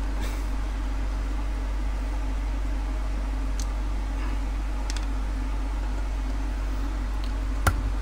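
Screwdriver prying at the plastic carbon-brush holder on a washing machine motor: a couple of faint clicks, then one sharp click near the end, over a steady low hum.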